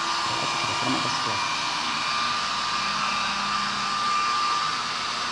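Handheld electric hair dryer running steadily, blowing air, with a thin steady whine over the rush of air.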